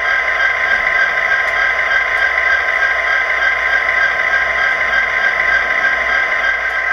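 Steady EMD diesel prime-mover sound played by an HO-scale Walthers SD60 model's onboard sound decoder through its small speaker, thin with little deep bass.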